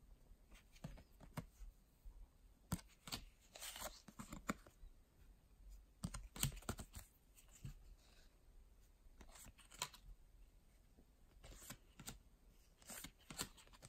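Faint, irregular swishes and light clicks of baseball trading cards sliding against one another as a hand-held stack is flipped through card by card.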